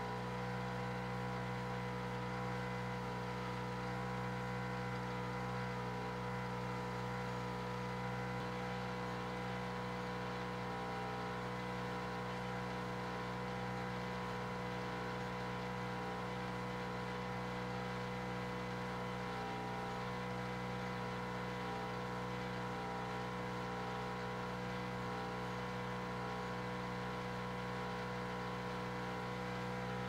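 Steady hum of a Proctor Silex microwave oven running while it heats a whole ostrich egg, mixed with the drone of a neighbour's air compressor. Level and pitch stay unchanged throughout.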